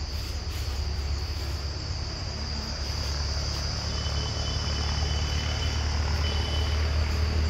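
Steady high-pitched insect chorus over a low, steady rumble.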